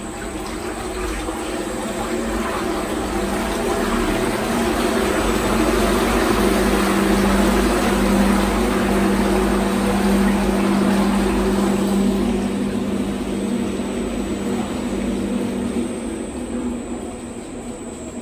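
Top agitator of a 500 L stainless homogenizer mixer running with its tank empty, on a variable-frequency drive: a steady motor and gearbox hum with a faint high whine. It grows louder to a peak about halfway through, then eases off near the end as the speed is turned down.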